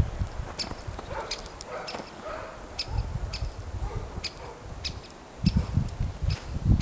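Storm wind gusting against the microphone in a snowstorm, with low rumbling buffets that die down in the middle and return strongly near the end, and irregular sharp ticks throughout.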